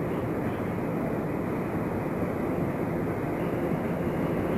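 Steady low rumble of a train approaching through a railway tunnel, growing slowly louder.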